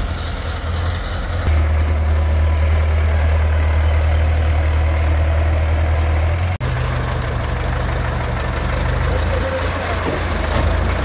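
Heavy vehicle engine running steadily at low revs. It cuts out abruptly for an instant about six and a half seconds in, then carries on at a slightly different pitch.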